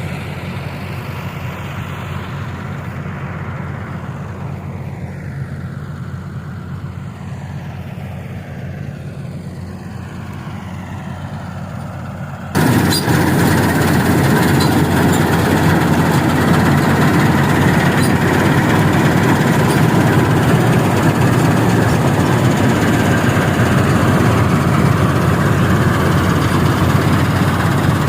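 Dasmesh 3100 combine harvester working in a rice crop: a steady engine hum with machinery noise, which jumps abruptly much louder about halfway through and stays loud.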